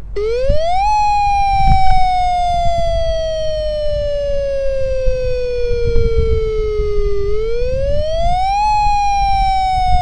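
Washington State tsunami warning siren sounding its wailing alert tone, the signal that a tsunami warning has been issued. The pitch rises quickly and then falls slowly over about six seconds. Near the end it rises again and begins another slow fall.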